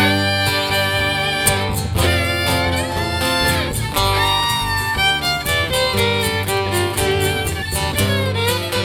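Instrumental break of a bluegrass-style song played live: a fiddle carries the lead with sliding notes over a strummed guitar and bass.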